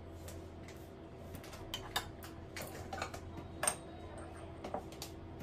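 Scattered light clicks and taps of a spoon or utensil against a bowl while raw chicken is being marinated with yogurt, over a faint steady low hum.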